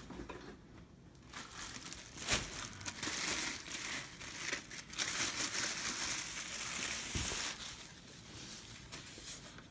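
Clear plastic bag crinkling as it is pulled off an aquarium canister filter, heaviest through the middle, with a couple of knocks from handling the filter.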